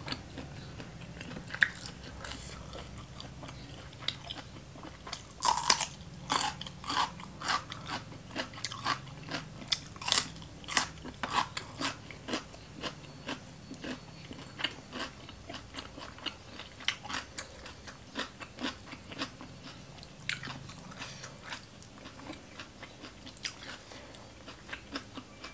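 A person chewing food close to the microphone, with many crisp, irregular crunches, thickest a few seconds in and thinning out afterwards.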